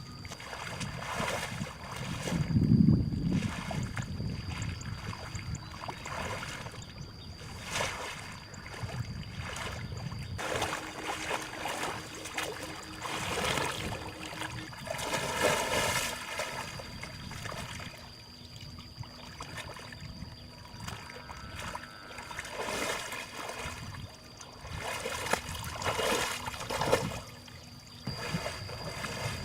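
Water sloshing and trickling in irregular surges, with a few brief knocks.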